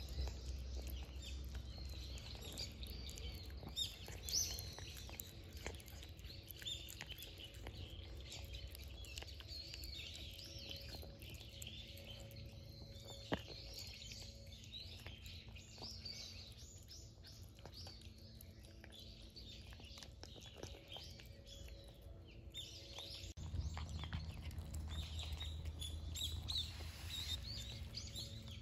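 Small birds chirping over and over in quick short calls, over a faint steady low hum.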